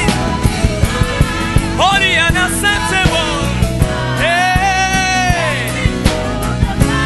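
Live worship band playing a steady beat with drums and bass under a lead melody. The melody slides up into notes and holds one long note about four seconds in.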